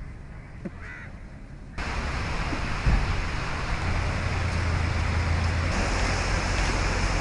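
Outdoor background noise: a steady rushing noise with a low hum that starts suddenly about two seconds in, after a quiet opening, with a single thump about three seconds in.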